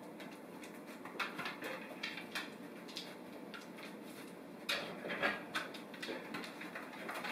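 A dog searching by scent, with short runs of quick sniffs and the tap of its claws on the hard floor as it moves along the cabinets. The busiest runs come about a second in and again around five seconds in.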